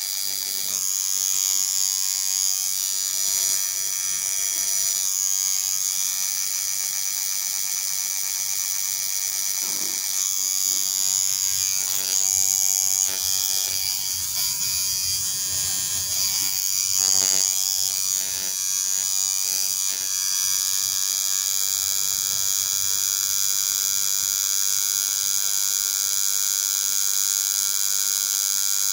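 Tattoo machine buzzing steadily as its needle cartridge draws outline work into skin.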